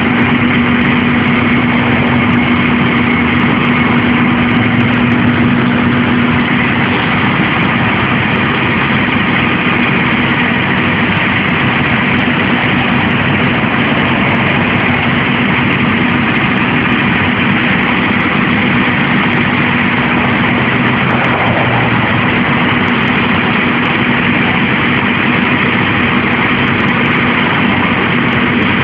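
Aerial ladder fire truck's diesel engine running steadily at idle, a constant even drone with a steady hum throughout.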